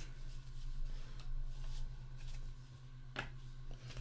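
Football trading cards being flipped through and slid against one another in the hands: a few soft, quick swishes, over a low steady electrical hum.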